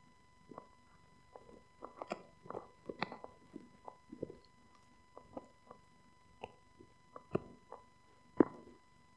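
Husky chewing a rawhide-style bone: irregular gnawing clicks and crunches, busiest around two to three seconds in, with the loudest crunch near the end.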